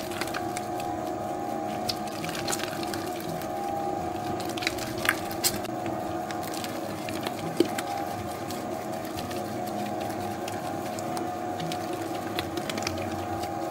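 Spiral dough mixer running steadily, its motor giving a constant hum as it kneads a soft 70%-hydration dough, with a few short knocks, the sharpest about halfway through.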